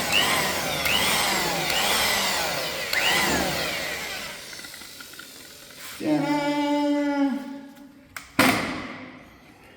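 Power tool buffing a headlight lens with cutting compound, its pitch rising and falling about once a second as the load changes, then fading out over the first few seconds. A short steady hum follows about six seconds in, and a sharp knock comes near the end.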